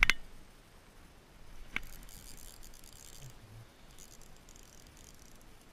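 Okuma RTX 30 spinning reel in use: a sharp click, a weaker one under two seconds in, then a faint high whir in two stretches as the reel is wound in.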